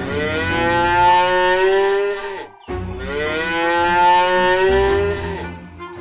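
Cow mooing: two long moos with a brief break between them.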